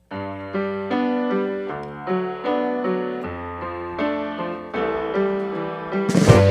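Background music: a piano-like keyboard plays a melody of struck notes and chords, and the drums come in with a crash near the end.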